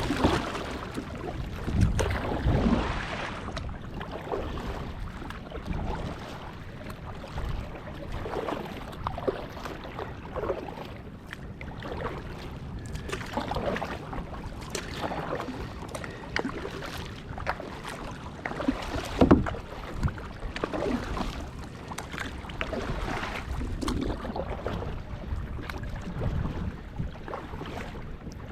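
Water splashing and sloshing against a Wai Kai outrigger kayak as it is paddled, in uneven surges every second or two.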